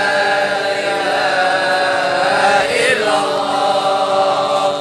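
A male voice chanting Islamic devotional recitation in long, drawn-out held notes, with a brief pitch bend a little under three seconds in before the note is held again.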